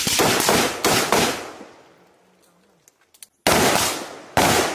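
Live rifle fire from AR-pattern carbines. A quick string of about five shots comes in the first second and a half, each trailing off in an echo. After a pause, two more shots come near the end.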